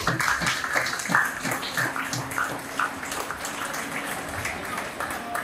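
Audience applauding: many hands clapping irregularly, holding at an even level.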